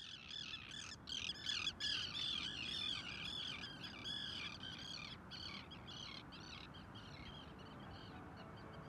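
A flock of birds calling, many short calls overlapping, loudest in the first few seconds and then thinning out. Faint music comes in near the end.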